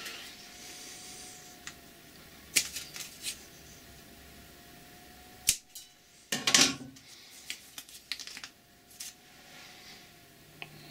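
Scattered sharp clicks and taps of a thin, stiff milk-bottle-plastic template being handled and pressed against the cast-iron saddle and bed way of a lathe. There is a brief rustling cluster a little past halfway.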